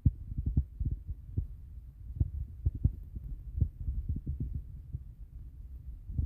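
Low rumble with irregular soft thumps, several a second, from a handheld camera being carried while walking: handling noise and footsteps.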